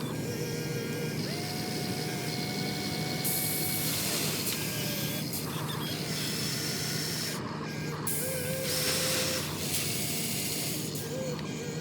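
Radio-controlled model excavator's electric motors whining over a steady grinding mechanical noise as it works; the whine steps up and down in pitch a few times as the machine moves.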